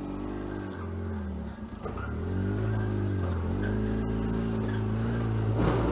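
2013 Polaris RZR 800 LE side-by-side's twin-cylinder engine revving up and down in short bursts as the machine crawls over boulders, with a brief drop in revs about a second and a half in.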